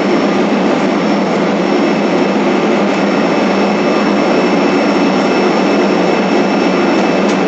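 Steady jet engine and cabin air noise inside a Boeing 767 cabin, an even rushing with a faint high whine.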